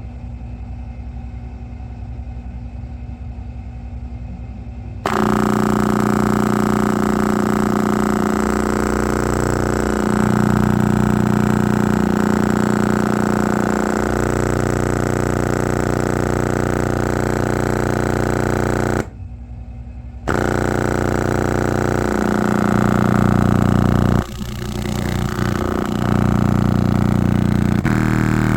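Old loudspeaker driven hard with a low bass tone, buzzing with heavy distortion as it is pushed toward burning out. It jumps much louder about five seconds in, cuts out briefly around the middle, and the tone's pitch changes a few times.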